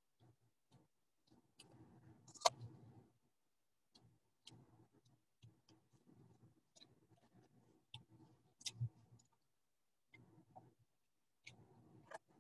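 Faint, scattered clicks and light knocks, a handful of them irregularly spaced, the sharpest about two and a half seconds in and another near the end.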